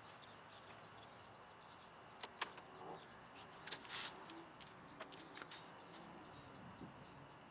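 Faint handling sounds of splicing wires: a handful of short sharp clicks and light rustling in the middle few seconds over a low steady hiss.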